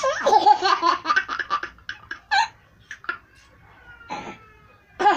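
A toddler laughing out loud: a long run of quick, rapid laughs at the start, then a few shorter laughs and one more burst near the end.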